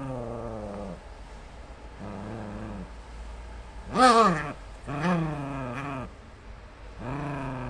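Small dog growling over a plush toy it is guarding, in five separate growls of about half a second to a second each. The loudest, about four seconds in, starts higher and slides down in pitch.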